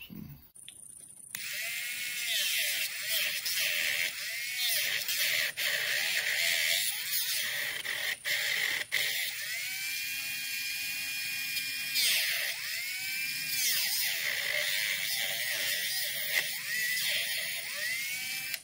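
Dremel 8220 cordless rotary tool with a cut-off wheel cutting small strips for handle scales: a high motor whine with grinding hiss that starts about a second in, its pitch repeatedly dipping and recovering as the wheel bites and is eased off. The footage is sped up, which raises the pitch above the tool's real speed.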